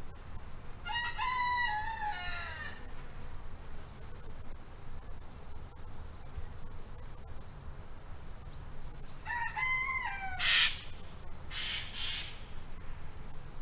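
A rooster crowing twice: a long crow about a second in and a shorter one near ten seconds, each rising, holding and then falling away. Just after the second crow comes a brief loud rush of noise, then two softer ones.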